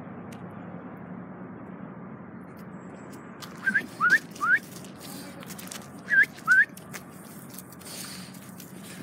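Short, rising whistles: three quick ones about four seconds in and two more about two seconds later, loud and close, over a steady low hum.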